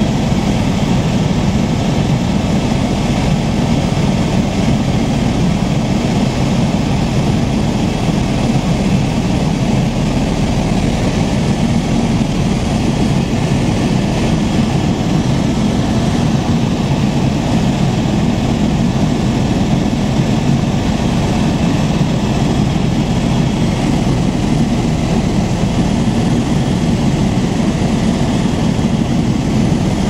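Steady, unchanging drone of an aircraft in flight, strongest in its low hum.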